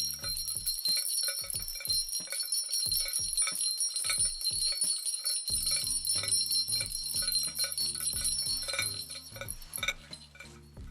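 Sleigh bells jingling in a dense, continuous shimmer that starts suddenly and stops near the end, the recorded bells being replayed through the Borderlands granular sampler app. Low background music runs beneath, dropping out after about half a second and returning about five seconds in.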